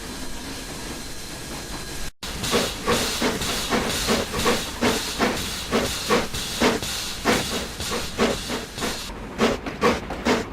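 Steam locomotive: a steady hiss of escaping steam that breaks off about two seconds in, followed by rhythmic exhaust chuffs, about three a second.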